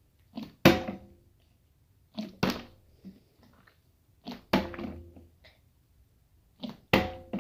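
Small plastic water bottle, partly filled with water, flipped onto a glass tabletop four times, about every two seconds. Each landing is a light tap followed at once by a louder thunk with a brief ringing.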